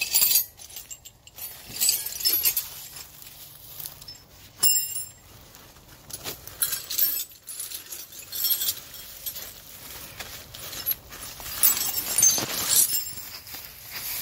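Loose metal hand tools and parts clinking and jangling as they are handled and set down, with a sharp ringing clink of metal on metal about four and a half seconds in.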